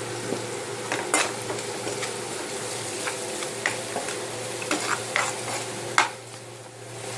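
Ginger, green chillies, curry leaves and chilli powder frying in hot oil in a pan as they are stirred: a steady sizzle with the utensil knocking and scraping against the pan several times. The sizzle drops briefly after the loudest knock near the end.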